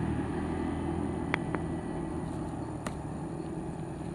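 A passing motorcycle fading into a low, steady engine hum, with a few sharp clicks about a second and a half in and near three seconds in.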